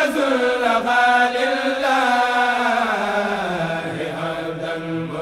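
A solo voice chanting an Arabic devotional song, drawing out long sliding notes without clear words, then holding one steady note near the end.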